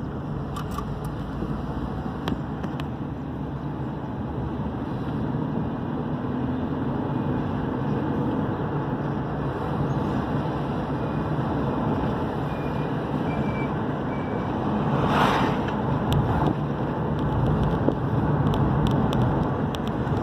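Steady engine and road noise of a moving vehicle heard from inside the cabin, a low drone that grows a little louder in the last few seconds. About fifteen seconds in comes a short hiss.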